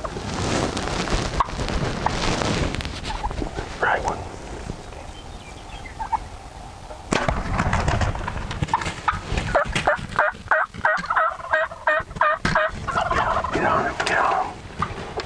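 Wild turkey toms gobbling: fast rattling, warbling notes that come thick and repeated through the second half. A stretch of rustling noise comes at the start.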